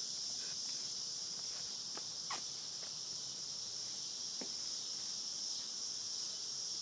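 Steady, high-pitched chorus of insects, such as crickets, with two faint clicks about two seconds apart.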